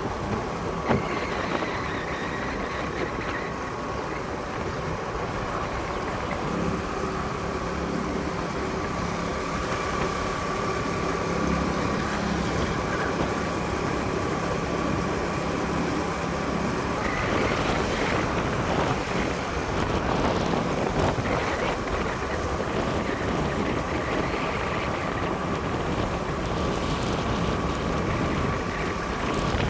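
A vehicle running steadily along a road, its engine drone mixed with road and wind noise. The engine note changes about two-thirds of the way through.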